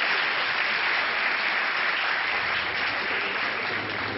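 Hall audience applauding, a dense even clapping that starts to thin and die down near the end.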